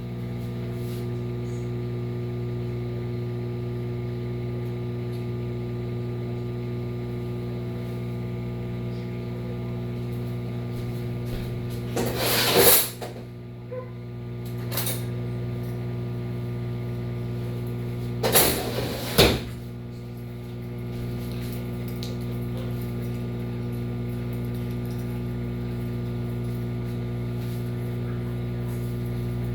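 Red 1000-watt Hamilton Beach microwave oven running with a steady hum while it cooks oatmeal. About twelve seconds in and again about eighteen seconds in comes a brief loud clatter.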